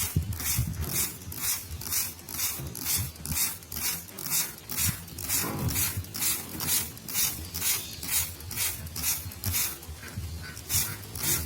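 Hand-pump trigger spray bottle squirting water, a quick hiss with each pump at about two to three a second, misting caged songbirds for their bath.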